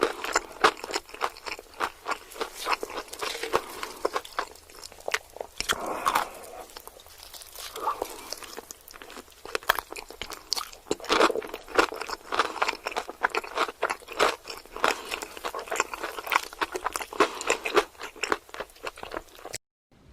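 Close-miked crunchy food being bitten and chewed: dense, irregular crackling crunches, cutting off suddenly just before the end.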